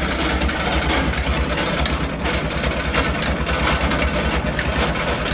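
Engine running steadily at idle with a fast, even low throb, with a few faint clicks over it.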